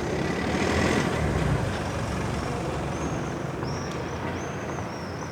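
City street traffic noise as a large motor vehicle passes close, loudest about a second in, then easing back to the general roar of traffic. Short high chirps, like small birds, come in from about halfway through.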